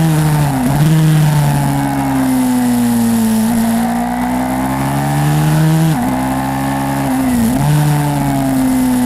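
YCF 150 SM pit bike's single-cylinder engine running under load, its pitch rising and falling, with three short sharp dips about half a second, six and seven and a half seconds in.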